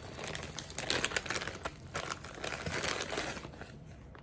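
Bubble wrap crinkling and crackling as it is handled, a dense run of small sharp crackles that dies away near the end.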